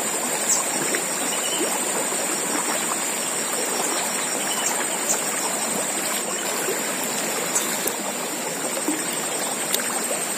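Fast-flowing, muddy river rushing steadily past the bank, a continuous even wash of water, with a steady high-pitched hiss above it.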